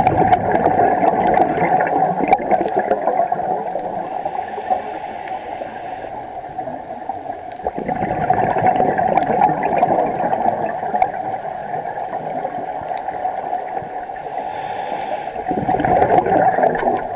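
A scuba diver's breathing heard underwater: exhaled bubbles gurgling from the regulator in surges near the start, about eight seconds in and near the end, with quieter breathing noise between.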